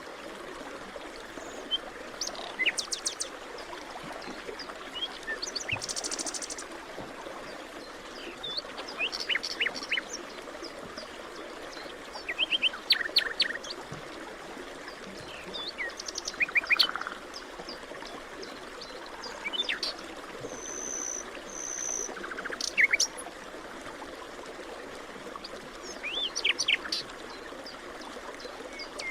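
Forest ambience: several songbirds chirping and calling in short phrases over a steady background hiss that may be a distant stream.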